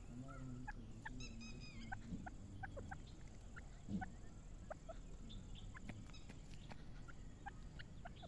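Grey francolin foraging on the ground, with faint, soft fowl-like calls, scattered short chirps throughout and one louder knock about four seconds in.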